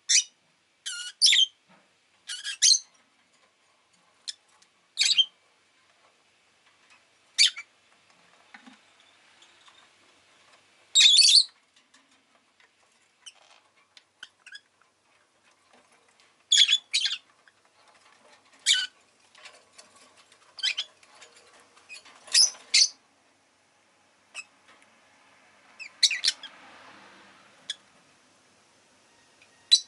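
Rosy-faced lovebird chirping: short, sharp, high calls at irregular intervals with quiet gaps between, and one longer, louder call about eleven seconds in.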